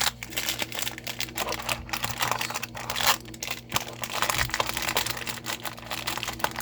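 Plastic packaging crinkling and rustling as packaged snacks are handled and pressed into place, an irregular run of crackles and small clicks.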